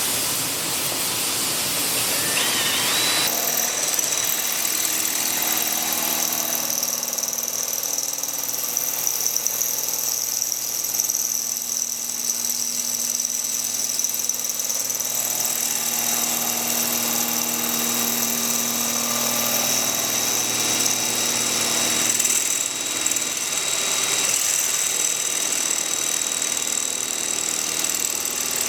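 Power drill running with a multi-purpose drill bit, drilling steadily. Its sound shifts a few seconds in and again about twenty-two seconds in.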